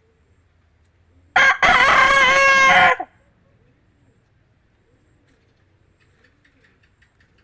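Rooster crowing once, a loud cock-a-doodle-doo of about a second and a half starting just over a second in, with a short break just after its first note.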